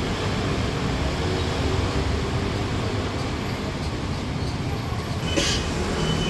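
Steady low rumble with a short hiss about five seconds in.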